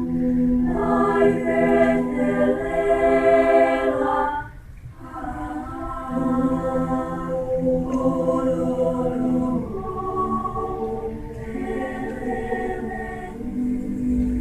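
Choir singing held chords, with a short break about four and a half seconds in before the voices come back in.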